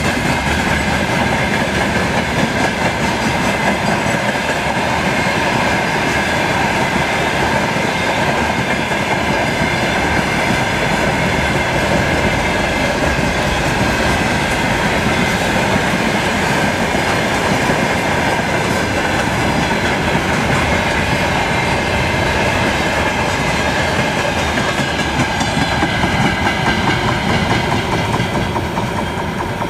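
Freight train of open wagons and tank cars rolling past close by: a loud, steady rolling noise of steel wheels on rail, easing slightly near the end.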